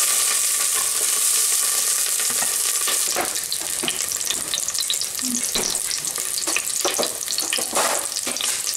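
Chopped garlic sizzling in hot olive oil in a stainless steel pot, stirred with a wooden spoon at first. A steady sizzle, with scattered crackles from about three seconds in.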